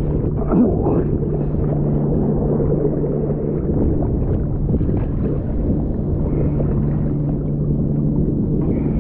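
Choppy sea water sloshing around an action camera held at the surface, mixed with wind noise on the microphone and a steady low hum that fades out for a couple of seconds midway.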